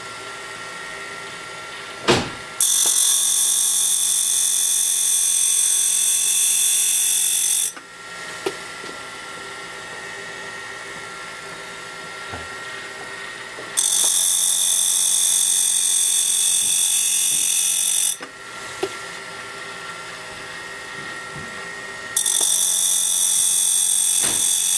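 A diamond wheel grinding the flute of a high-speed-steel end mill in three passes, each a loud, steady, high-pitched hiss of four to five seconds that starts and stops sharply. Between the passes the running wheel hums steadily. A sharp click comes just before the first pass.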